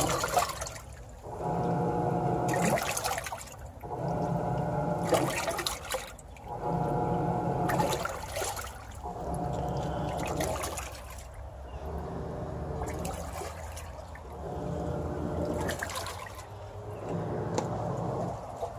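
Samsung WA40J3000AW top-load washer agitating a load of water: the drive motor hums through each stroke, then pauses with a swish of water and reverses, in a cycle repeating every two to three seconds. It runs without grinding or chattering, the normal agitation sound after the repair.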